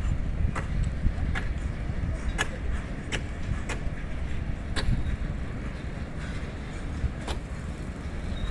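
Loaded rail tank wagons of a freight train rolling past: a steady low rumble with sharp clicks of the wheels over the rail joints, roughly one a second, fewer near the end.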